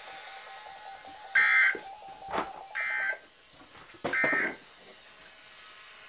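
Three short buzzing data bursts, about 1.3 seconds apart, from a NOAA Weather Radio receiver: the Emergency Alert System end-of-message tones that close the warning broadcast. A single sharp click falls between the second and third bursts.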